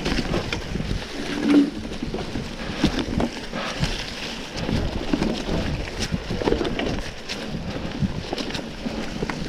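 Mountain bike riding on a dirt trail: tyres rolling over dirt and roots under a steady low rumble, with frequent short knocks and rattles from the bike.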